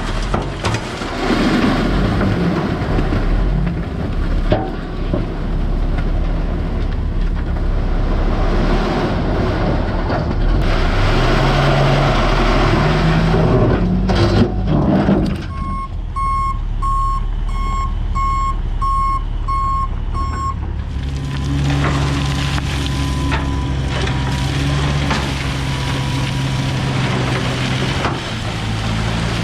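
Heavy diesel earthmoving equipment running and working, its engine revving up for a few seconds around the middle. Just after that a backup alarm beeps steadily, about two beeps a second, for roughly five seconds while the machine reverses.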